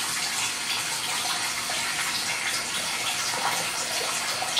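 Steady rushing noise, like water running from a tap, with a few faint light clicks.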